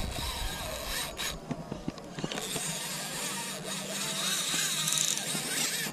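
Fishing reel rasping under load from a hooked tarpon, with its drag and gears working as line is fought. The rasp grows stronger about two seconds in.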